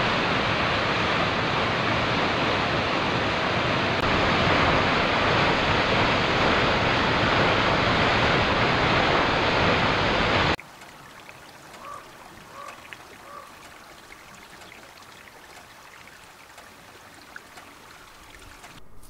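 Waterfall: a loud, steady rush of falling water that cuts off suddenly about ten seconds in. After that comes a much quieter open-air background with three faint, short calls in quick succession and a few faint ticks.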